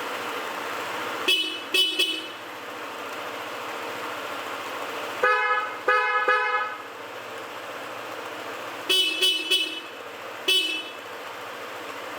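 Two vehicle horns sounded in short toots through a switch that selects between them: a couple of quick toots, then three toots of the other horn with a different tone, then four quick toots of the first horn again. A steady hiss runs underneath.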